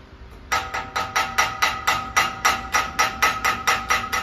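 Chipping hammer rapping slag off a 7018 stick weld bead on a steel test coupon, about four to five quick strikes a second with a metallic ring, starting about half a second in. This is slag being cleared between weld passes.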